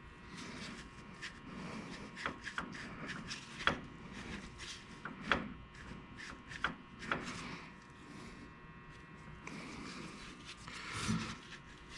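Irregular sharp clicks and knocks with some rubbing, from hand work on a Mopar 8.25 rear differential while its ring-and-pinion backlash is being set.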